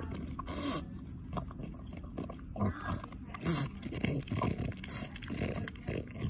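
French bulldog chewing a hard iced cookie off the ground, in irregular crunches and bites. The loudest crunches come about a second in and about halfway through.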